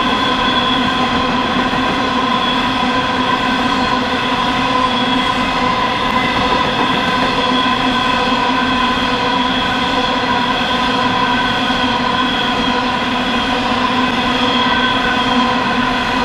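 Empty coal hopper wagons rolling past at speed: a loud, steady rumble of wheels on rail, with a whine of several held tones over it.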